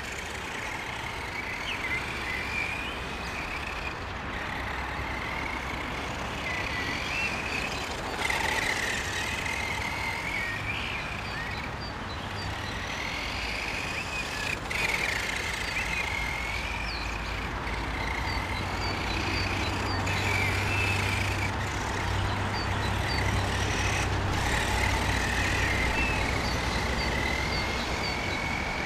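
Brushed electric motor and drivetrain of a 1/10 scale RC short-course truck whining as it drives, the pitch rising and falling again and again with the throttle, over a steady background rush.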